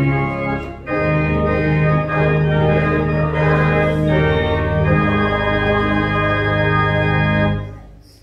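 Church organ playing sustained chords, moving to a new chord about a second in and again about five seconds in, then the final chord is released and dies away near the end.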